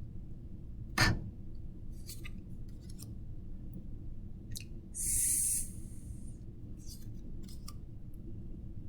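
Handling noises over a low steady room hum: a sharp click about a second in, a few light ticks, and a short hiss just past the middle.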